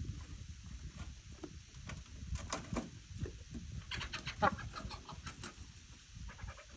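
Peafowl clucking, short scattered notes with a quick run of them about four seconds in.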